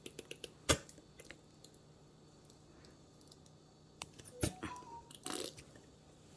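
Kitchen handling sounds while marinating chicken: a single sharp knock of a container or utensil under a second in, then, from about four seconds, a cluster of light clicks and knocks with a brief hiss.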